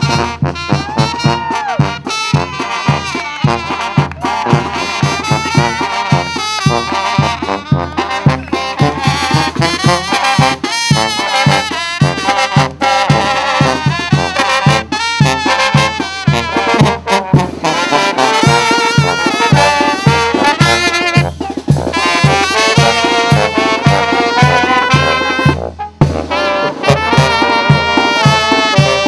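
Mexican banda brass band playing a lively tune: trumpets carry the melody over a sousaphone bass line and a drum keeping a steady beat.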